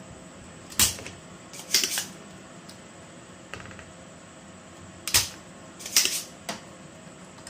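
Spring-loaded desoldering pump (solder sucker) firing with a sharp snap as it sucks solder from a relay's pins on the circuit board, twice about four seconds apart, each snap followed about a second later by a short clatter as the plunger is pushed down and re-cocked.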